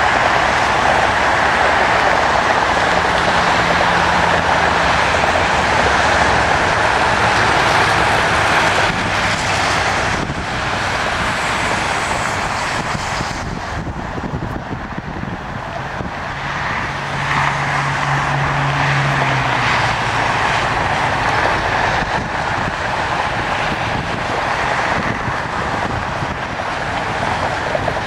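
Steady roar of jet airliner engines mixed with road traffic, easing off somewhat in the middle, with a low engine hum coming and going twice.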